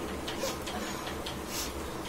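Faint, unevenly spaced ticking clicks, a few a second, with a short hiss about half a second in and a louder one about one and a half seconds in.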